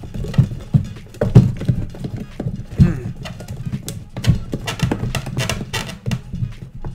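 A utensil stirring thick protein ice cream in a plastic blender jar, knocking and scraping against the jar's sides in an uneven run of knocks, as cookie-dough mix-ins are folded in.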